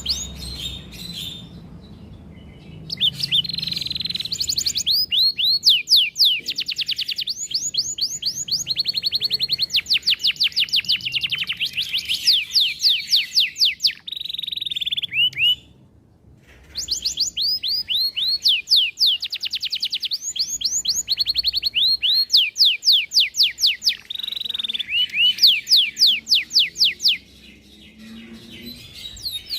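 Domestic canary singing long phrases of fast repeated high notes (rolls), one series after another. There is a short break about halfway through, and the song drops back near the end.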